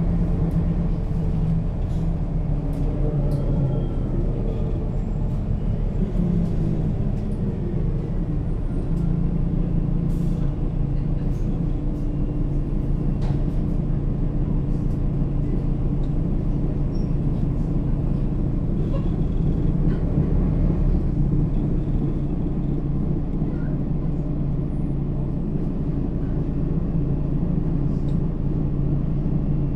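Mercedes-Benz Citaro O 530 G articulated bus driving, heard from on board: its diesel engine and Voith automatic gearbox run steadily, and the engine note shifts about 8 seconds in and again about 22 seconds in as the speed changes, with a few light rattles.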